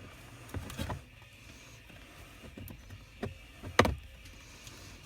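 Light clicks and knocks of needle-nose pliers working plastic trim clips loose, with one louder sharp click about four seconds in.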